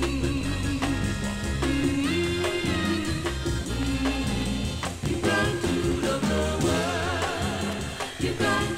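A 45 rpm vinyl single of soul-jazz groove music playing from the turntables, with a band and steady bass. Singing comes in over it around the middle.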